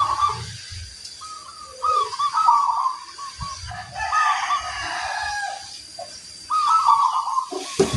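Zebra doves (perkutut) cooing in repeated bursts of quick, rippling notes, answering one another. A rooster crows in the background around the middle.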